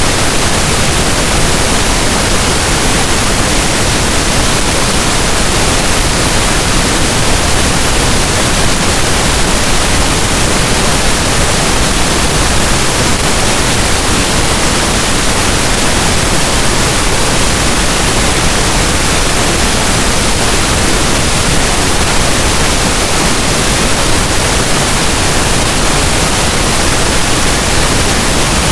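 Steady synthetic pink noise: an even, unbroken hiss spread across all pitches, with no change in level or character.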